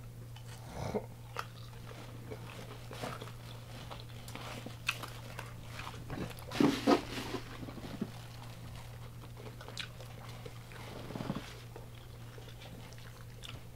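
Close-up chewing and crunching of crispy deep-fried food, with scattered small crackles and a louder bite about halfway through, over a steady low hum.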